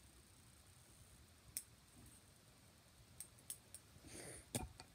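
Faint, sharp clicks of small metal scissors snipping fingernails: a single snip about a second and a half in, then several close together in the second half, with a short breath in between.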